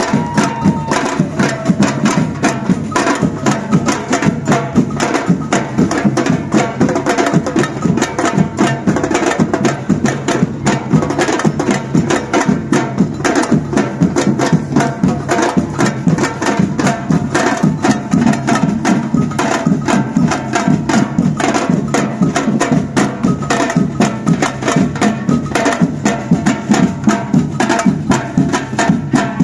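Batucada drum band playing a fast, steady rhythm, many drums striking together without a break.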